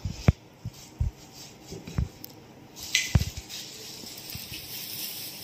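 Handling of a cloth drawstring pouch of chess pieces: a few soft thumps and light clicks as the pieces knock together, then plastic packaging rustling from about three seconds in.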